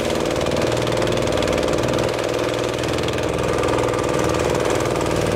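Small outboard motor of a jukung outrigger boat running steadily, heard from on board.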